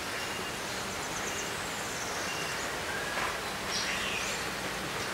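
Steady background hiss of ambient noise with a few short, high bird chirps and whistles, the clearest a little before the middle and again near the end.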